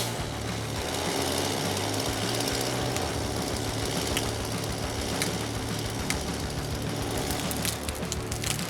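Chainsaw running steadily as it cuts through a log, with a few sharp clicks scattered through the cut.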